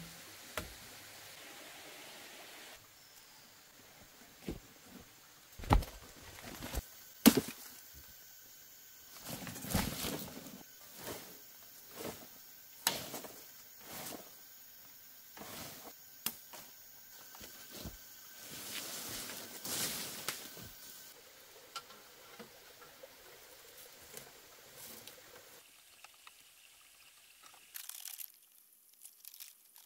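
Wooden knocks from logs and poles being handled, mixed with rustling of dry leaves and undergrowth: a string of scattered knocks and rustles, the two loudest knocks about six and seven seconds in.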